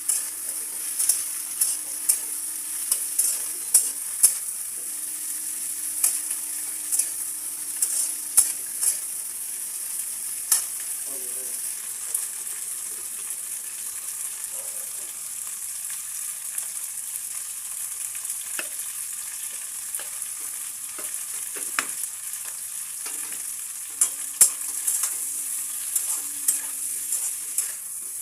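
Cauliflower and onion frying in hot oil in a pan, sizzling steadily, with a spatula knocking and scraping against the pan as it is stirred. The stirring clicks come thick and fast for the first ten seconds or so and again near the end, with fewer in between.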